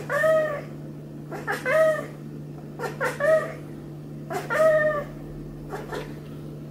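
Maine Coon cat meowing four times, about a second and a half apart, each call rising and then falling in pitch, with a fainter short call near the end.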